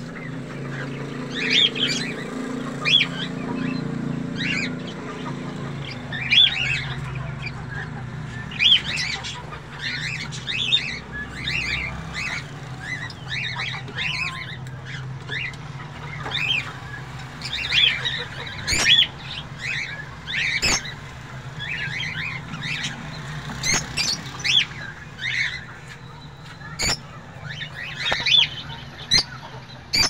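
A colony of budgerigars chattering: many short, sharp chirps and squawks from several birds, coming in quick irregular bursts.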